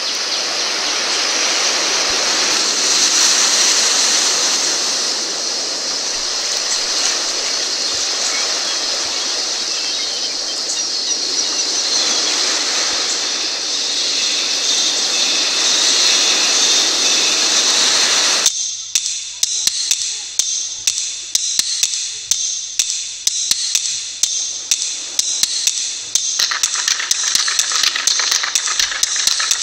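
Steady rush of sea water and surf, cutting off suddenly about two-thirds of the way through into rapid, uneven clicking and tapping over a faint steady tone.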